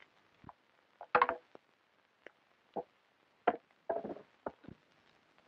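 A string of short, irregular knocks and thumps, about eight in five seconds, the loudest about a second in.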